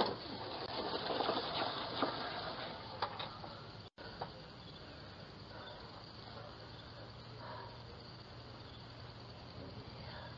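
Light scrapes and knocks as a steel mower deck is tipped and handled on grass during the first few seconds, then a steady faint hiss with a low hum.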